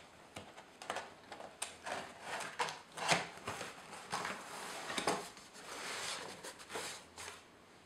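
Cardboard packaging box being opened by hand: flaps pulled open with irregular scraping, rustling and small knocks of cardboard and packing, the loudest scrapes about three and five seconds in.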